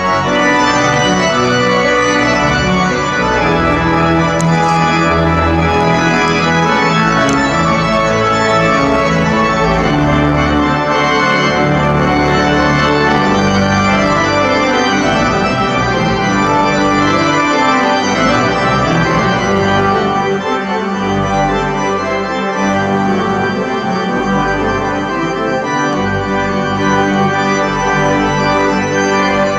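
The Conference Center's Schoenstein pipe organ playing a loud piece in full sustained chords over deep bass notes. The bass thins out about two-thirds of the way through.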